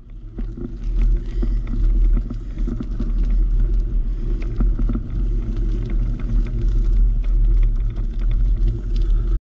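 Wind rumbling on the microphone of a camera carried by a rider cycling a rough dirt path, with tyre noise and frequent small knocks and rattles from the bike over the bumps. It cuts off suddenly near the end.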